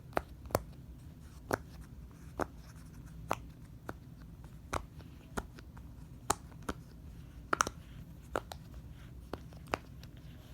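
Sharp, irregular clicks, about one or two a second with a quick double click near the end, from a fidget toy being clicked by hand, over a low steady hum.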